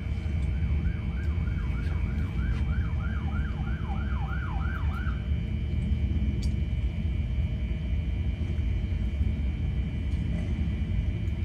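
Steady low rumble of a long procession of cruiser motorcycles, mostly Harley-Davidsons, riding past, heard through a vehicle's windscreen. For the first five seconds or so a faint siren-like yelp repeats about four times a second, then stops.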